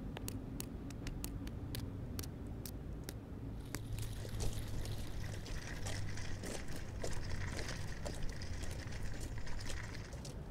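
Sharp, irregular taps of a small hammer on brick and stone, about three a second, stopping after about three and a half seconds. They give way to a steady hiss full of scattered small clicks.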